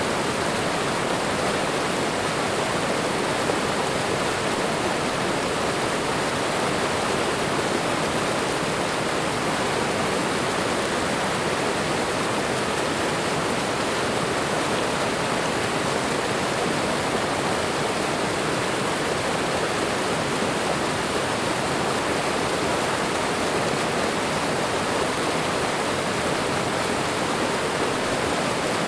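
Waterfall: falling water rushing and splashing in a steady, even roar of noise that never lets up.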